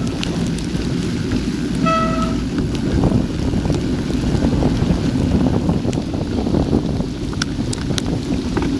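Wind rushing over a bike-mounted action camera's microphone while riding a mountain bike through heavy rain, with tyres running on the wet track and raindrops ticking on the camera housing.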